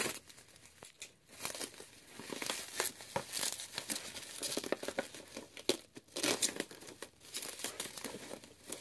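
Plastic packaging crinkling and rustling in a run of irregular bursts as a parcel's contents are unwrapped by hand.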